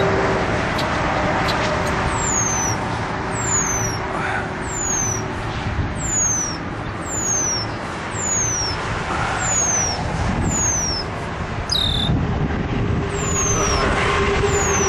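A bird calling angrily over and over, short high notes that slide downward, about one a second from about two seconds in, with a lower, sharper call twice: alarm calls from a bird defending its nest. A steady rumble runs underneath.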